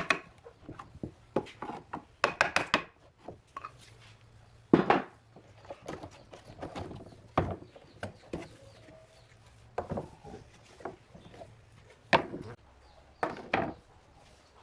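Irregular sharp wooden knocks and clatters: a chisel prying a curved bent-wood strip loose from its wooden bending form, and the freed strip knocking against the form and the bench. Fainter rubbing and scraping of wood between the knocks.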